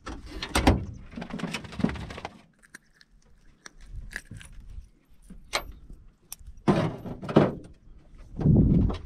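Metal tools and tackle clattering and clicking as they are rummaged in a boat's dashboard compartment, then small metallic clicks of pliers working a swallowed hook out of a fish. Two louder rustling knocks come near the end.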